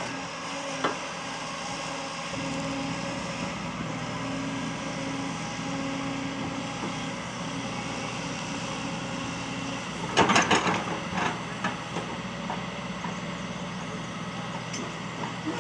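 Excavator's diesel engine running steadily, with a loud burst of clattering strokes about ten seconds in, lasting under a second.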